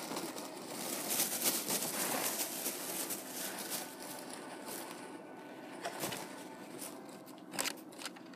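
Close-miked eating and food-wrapper handling: dense crinkling and crackling, thickest in the first three seconds, thinning out, with a couple of sharper clicks near the end.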